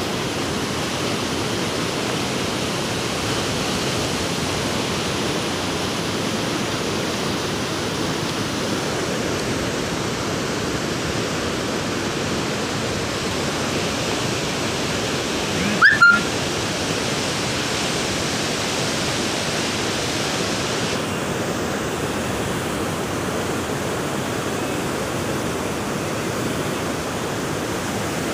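Monsoon rain falling steadily, an even hiss throughout. About sixteen seconds in, a brief sharp sound with a quick rising squeak cuts through it.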